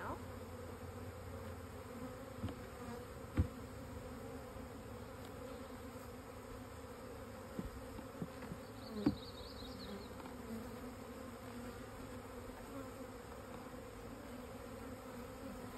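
Honey bees buzzing in a steady hum around an open hive. A few sharp knocks cut through it, the loudest about three and a half and nine seconds in.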